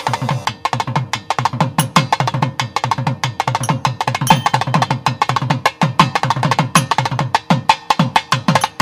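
Rapid hand-drum playing, a dense run of crisp, sharp strokes over deep strokes that drop in pitch, with no singing: a percussion interlude in a Tamil devotional song.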